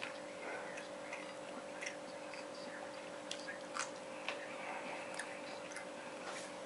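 A person chewing food, with scattered light clicks of a fork against a china plate, over a steady background hum.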